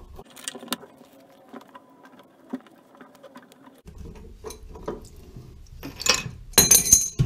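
Old chrome toilet shutoff valve being unscrewed by hand from its threaded wall outlet: faint metal clicks and scrapes of the threads turning, then a few louder metallic clinks near the end as the freed valve is handled.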